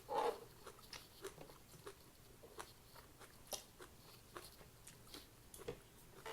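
Close-up chewing and biting of food, with faint crunches and small wet mouth clicks scattered through, and one louder bite right at the start.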